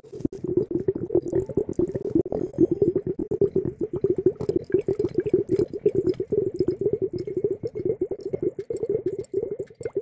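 Fast, continuous wet squishing and squelching from fingers working a translucent squishy ball for ASMR, many small squelches a second.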